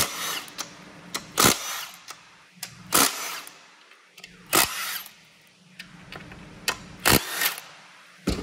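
Impact wrench running in about six short bursts, roughly every one and a half seconds, as it loosens the 13 mm stator support bolts on a GM 8L90 eight-speed automatic transmission. Small clicks come between the bursts.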